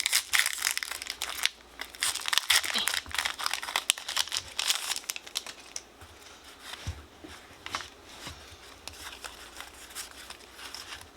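A foil Pokémon booster pack wrapper crinkling and being torn open. The rustling is busiest in the first half and then thins to fainter handling.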